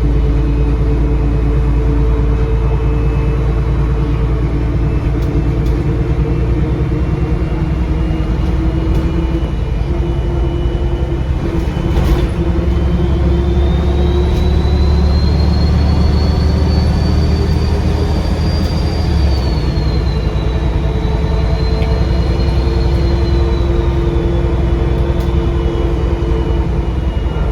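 Bus diesel engine running under load, with a loud, high turbocharger whistle that rises in pitch about halfway through, holds, then drops back and fades near the end. A single sharp knock is heard just before the whistle climbs.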